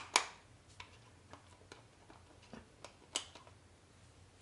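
Plastic rocker keys of a newly fitted wall light switch block clicking as they are pressed: two sharp clicks right at the start, then several fainter ticks, a somewhat louder one about three seconds in. The triple switch's keys are stiff and spring back when switched on, which the owner dislikes.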